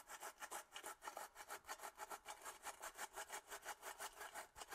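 MR-1 CNC mill base plate being worked back and forth into wet concrete with a sawing motion, a faint, fast, even rasping of about eight strokes a second as the plate is bedded down into the concrete.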